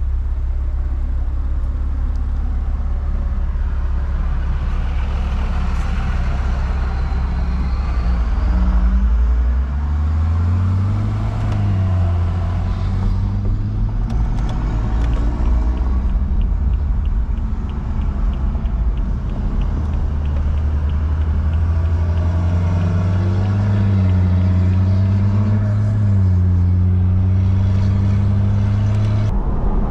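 BMW F30 335i's turbocharged inline-six, tuned to Stage 2 with a catless downpipe, running under way at a steady cruise. The engine note rises in pitch about ten seconds in, settles, and rises again for a stretch later.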